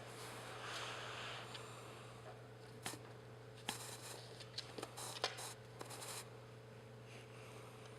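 Golden retriever puppy hiccupping: faint, short sharp sounds, one about three seconds in, another just before four seconds, and a close cluster between four and a half and six seconds.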